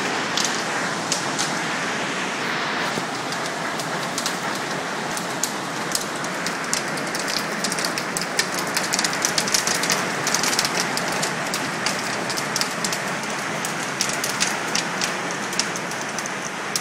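Hailstorm: a dense, steady rush of hail falling, with many sharp clicks of individual hailstones striking hard surfaces close by, thickest around the middle.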